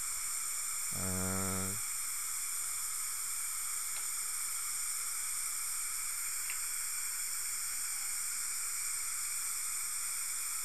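Dental suction running with a steady airy hiss. About a second in there is a brief low hum, under a second long.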